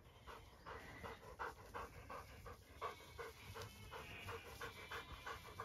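A dog panting quickly and steadily, about three to four pants a second, faint and close.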